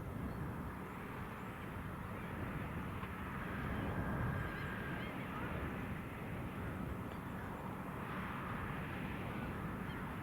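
Valtra T.153 tractor engine running steadily while ploughing, with gulls calling now and then over it.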